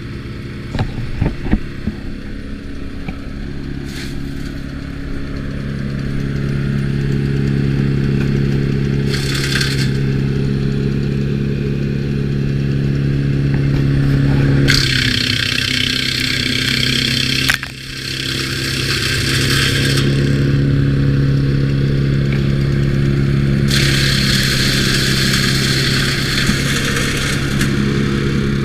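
Timber Wolf TW13/75G wood chipper running at a steady engine speed, with a few sharp clatters near the start. Loud hissing, crunching bursts of wood being chipped come in three times: briefly about a third of the way in, for several seconds through the middle, and again near the end.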